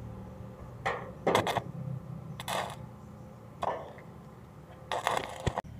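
Short scraping and rustling sounds, five or six of them about a second apart, as electrical wires are worked with a hand tool at a sliding-gate opener's control board, with a sharp click near the end. A steady low hum runs underneath.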